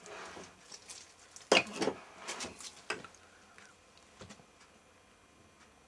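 Several knocks and clinks of metal gearbox parts being handled on the casing, the loudest about a second and a half in, with a few lighter ones after.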